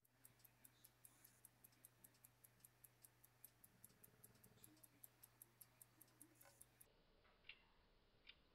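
Century-old Waltham 17-jewel pocket watch ticking faintly and evenly, about five ticks a second: its balance beating at close to 18,000 beats per hour, running true after being demagnetized. About seven seconds in, the ticking changes to slowed-down playback, one lower, duller tick about every 0.8 seconds.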